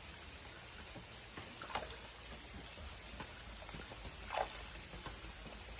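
Steady pouring, trickling water of a pond's inflow or aerator jet. Two brief splashes stand out, near two seconds in and again past four seconds, as a hooked fish thrashes at the surface.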